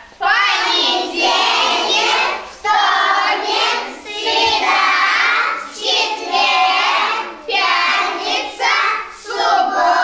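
A group of young children singing a song together in unison, in short phrases with brief breaks between them.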